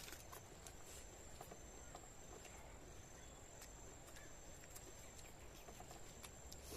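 Near silence with faint insect chirping, crickets, a steady thin high trill with short repeated chirps, and a few faint clicks.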